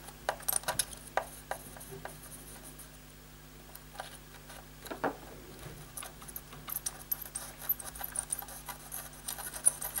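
Soldering iron pressing copper desoldering braid onto a fluxed circuit-board pad to soak up old solder: scattered faint clicks and scratchy rubbing, a little stronger about five seconds in, over a steady low hum.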